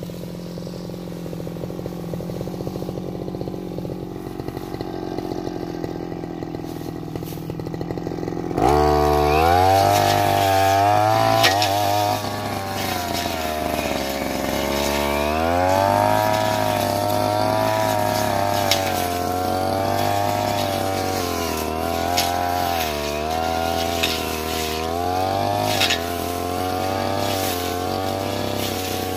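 Stihl brush cutter engine running at lower speed, then revving up sharply about nine seconds in and holding at high speed. Its pitch dips and recovers again and again as the blade loads up cutting through brush, grass and saplings, with a few sharp ticks.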